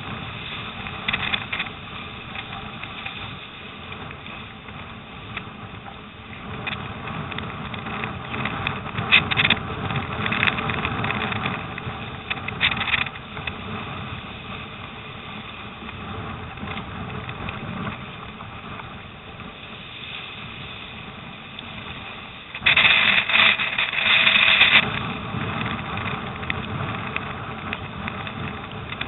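Storm wind buffeting the microphone over choppy lake water slapping against a surfski's bow. Near the end the bow cuts through a wave and throws up spray, a loud splash lasting about two seconds.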